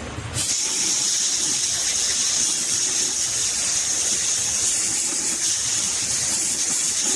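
A steady, high-pitched spraying hiss that starts abruptly about half a second in.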